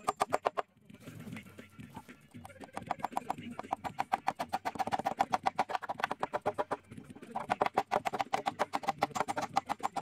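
Background music with a fast, even pulse of about ten beats a second, dropping out briefly about a second in.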